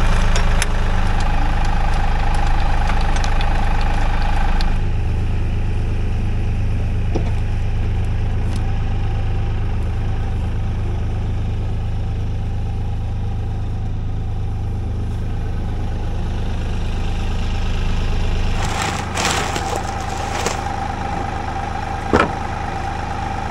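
Tractor engine running steadily, with a shift in its note about five seconds in and a few knocks near the end.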